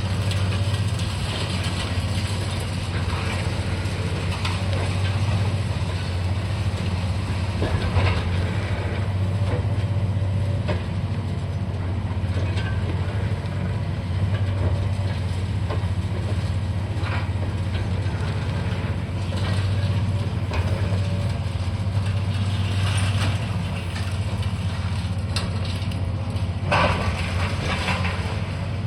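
Diesel engine of a demolition excavator running steadily, with scattered crunching and clanking of rubble being broken and moved, the loudest crunch near the end.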